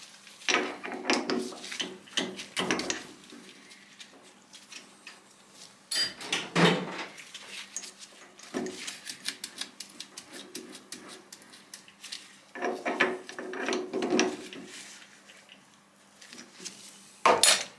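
Small steel tools being handled while an HSS tap is fitted into a lathe's tailstock drill chuck: irregular metal clinks, rattles and knocks. There is a louder clatter about six seconds in, another spell of rattling later, and a sharp clink near the end.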